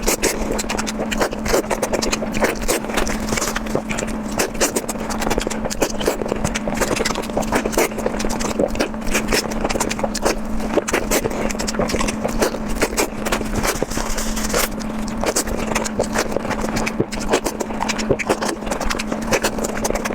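Close-miked eating of instant noodles: a dense, irregular run of wet chewing and slurping clicks, over a steady low hum.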